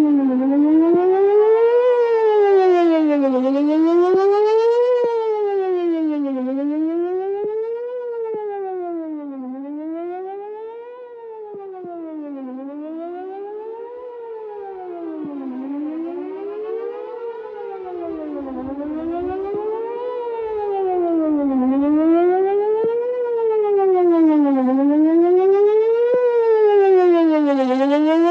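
Whelen WPS-4008 electronic outdoor warning siren sounding a test, its tone sweeping up and down, about one rise and fall every three seconds. It grows fainter toward the middle and louder again near the end.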